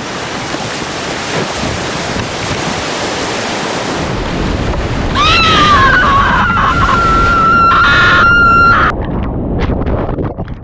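Whitewater rushing and crashing around a kayak going over the flooded Reedy River falls at about 800 cfs. From about five seconds in, a loud high-pitched sound rises and then holds steady, cutting off abruptly just before nine seconds. Sharp splashes follow as water covers the camera.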